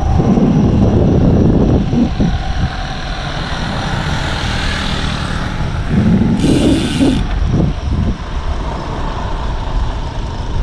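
Steady low rumble of wind buffeting an action camera's microphone while cycling, with a brief high hiss about six and a half seconds in.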